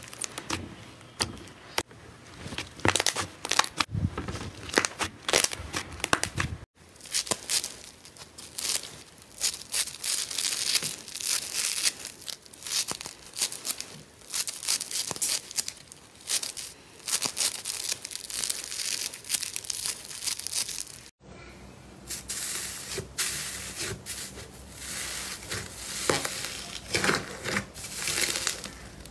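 Hands working slime, with a dense crackle of small pops and tearing: a soft fluffy slime is squeezed and pulled apart, then scissors snip through a foam sponge from about a quarter of the way in, then a glossy slime is kneaded in a container for the last third, crackling again.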